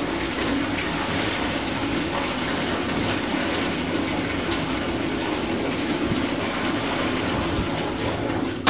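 Maple sap pouring from a plastic bucket into a metal collecting tank: a steady gushing splash of liquid hitting liquid and sheet metal as the bucket empties.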